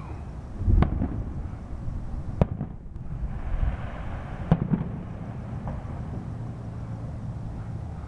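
Aerial fireworks shells bursting overhead: three sharp reports about two seconds apart, the first and last with a deep boom, and a hiss between the second and third.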